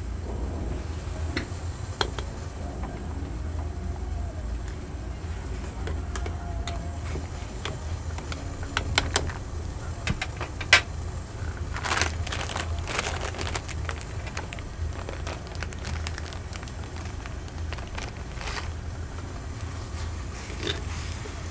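Ramen being cooked at a street food stall: a steady low hum under scattered clinks and knocks of pots and utensils.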